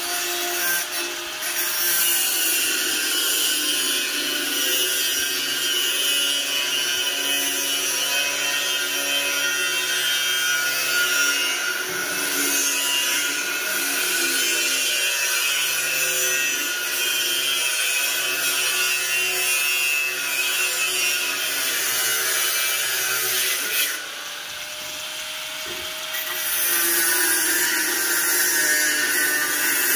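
Electric angle grinder with a cut-off disc cutting through a metal tube, a loud steady whine with grinding noise as the disc bites. It eases off for a couple of seconds near the end, then cuts again.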